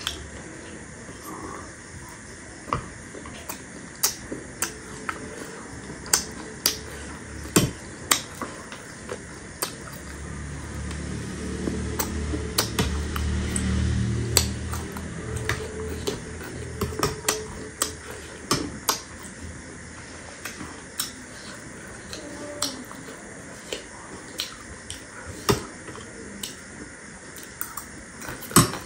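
Metal spoon clinking and scraping against a ceramic bowl while stirring chatpate, a spicy puffed-rice mix: irregular sharp clicks, a few a second at times. A low rumble swells for a few seconds in the middle.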